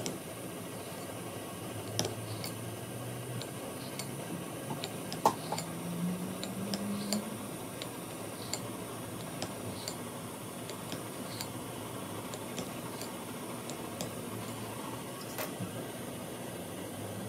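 Knife slicing a block of queijo coalho on a ceramic plate, the blade clicking against the plate now and then, over a steady background hiss.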